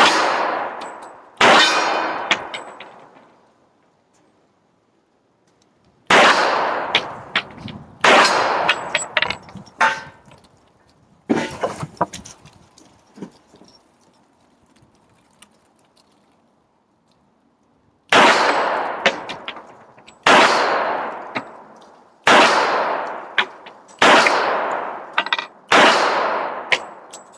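Smith & Wesson Performance Center 1911 .45 ACP pistol fired about ten times at an uneven pace: two shots, a pause, a few more, a longer pause, then five shots about two seconds apart. Each shot is loud and sharp and trails off over a second or two.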